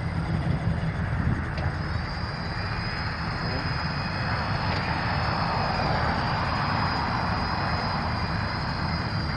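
The 6.0-litre gas V8 of a 2008 Chevrolet Silverado 2500HD pickup running steadily. A steady high whine joins it about two seconds in.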